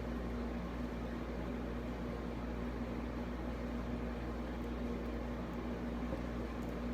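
Steady background hum with an even hiss and a faint held tone, like a fan or appliance running in the room.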